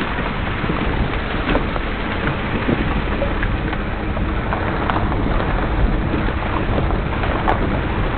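Vehicle driving over a rough dirt road: a steady low rumble with wind buffeting the microphone and a few scattered knocks and rattles.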